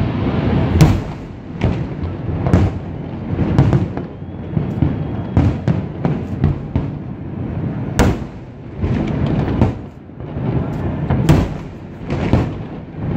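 Aerial fireworks shells bursting in an irregular rapid series of sharp bangs over a constant deep rumble, with a few louder cracks standing out.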